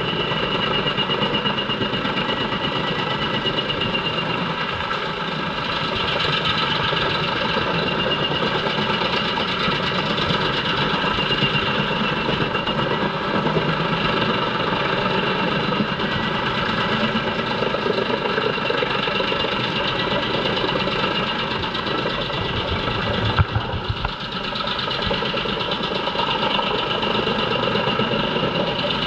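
JENZ HEM 593-R truck-mounted wood chipper running steadily under load, chipping poplar logs fed in by its crane, with the chips blowing out through the discharge spout. It makes a dense, continuous machine noise with several held tones. There is a single loud thump about twenty-three seconds in.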